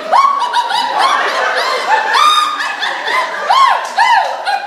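Women laughing loudly in high-pitched giggles that rise and fall in pitch, one after another.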